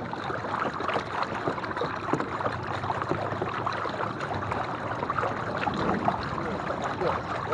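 Water rushing and splashing along the hull of a moving kayak, a steady wash with many small splashes.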